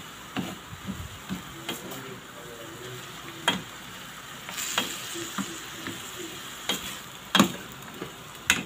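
Ampalaya (bitter melon) frying in a pan, with a steady sizzle. A cooking utensil clinks against the pan several times at uneven intervals, the loudest clink about seven seconds in.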